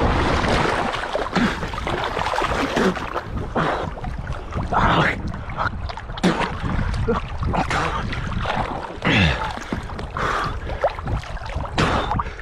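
Water sloshing and gurgling against a small boat's hull, with wind buffeting the action camera's microphone and irregular splashes and knocks throughout.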